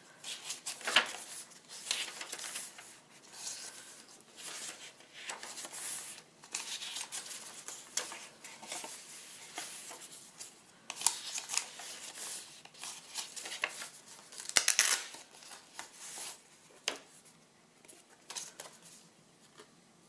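Paper rustling and brushing in short, irregular strokes as the pages and paper tags of a handmade ledger-style journal are turned and handled, with a few sharper flicks of paper.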